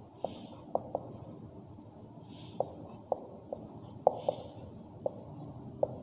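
Marker writing on a whiteboard: a dozen or so short taps of the tip against the board, with three longer scratchy strokes. A low steady hum runs underneath.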